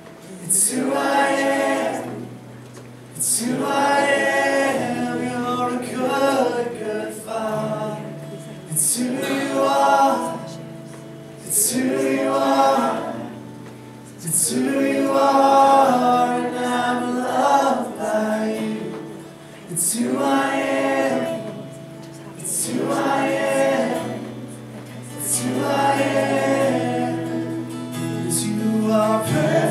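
A male worship leader singing and strumming an acoustic guitar, with the congregation singing along, in sung phrases separated by short breaths.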